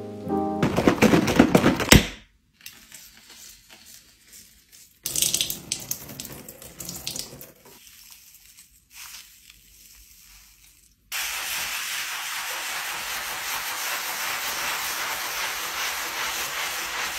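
Black kitchen sink being scrubbed by hand with a pad and sponge: scrubbing and water noise in short spells. About two-thirds of the way in, a steady hiss begins.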